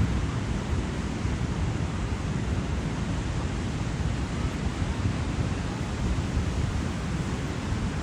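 Wind buffeting the microphone over the steady wash of ocean surf.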